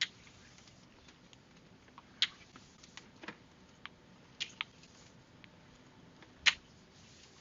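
Sparse light clicks, six or seven of them at uneven intervals, over a faint steady hiss; the loudest comes a little over six seconds in.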